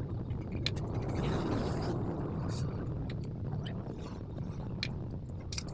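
Scattered metallic clicks and clinks of hand tools at irregular intervals, over a steady low rumble.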